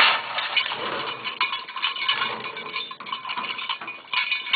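A bull-riding bell on a bucking bull's rope clanking and jangling continuously as the bull bucks, with a louder flurry of clanks about four seconds in.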